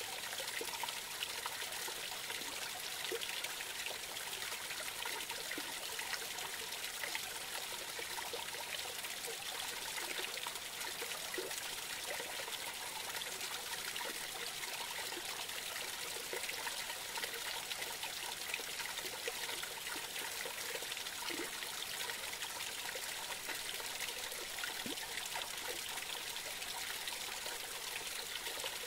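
Small woodland creek spilling over a low drop: a steady trickling splash with scattered short gurgles.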